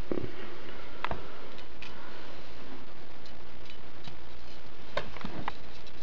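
Handling noise: a few sharp clicks and knocks, strongest at the start, about a second in, and in a quick cluster of three near the end, with fainter ticks between, over a steady hiss and low hum.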